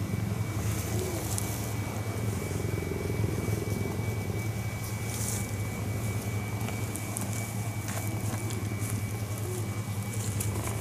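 Cheetah purring: a steady, low, rapidly pulsing rumble that runs on without a break.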